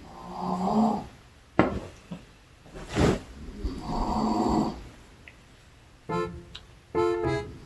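A man snoring in deep sleep: two long, rough snores about four seconds apart, with a third starting at the end. Two sharp knocks fall between the first two snores, and a few short piano-like notes come near the end.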